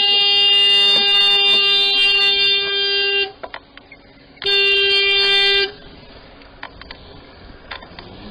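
A horn sounded in two steady single-note blasts: a long one of about three and a half seconds, then a shorter one of about a second. It is a warning at a car pulling out across the path.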